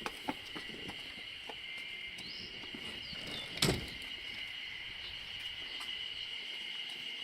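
Insects chirping in a steady high drone outdoors, with a few light clicks like footsteps near the start and a single sharp knock about three and a half seconds in.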